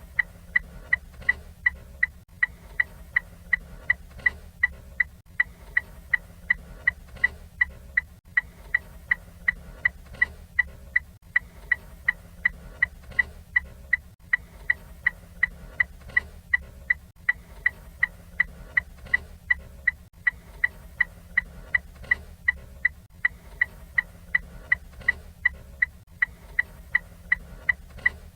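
Ford Fiesta turn signal ticking steadily, about two to three sharp clicks a second at an even pace, over a faint steady low hum.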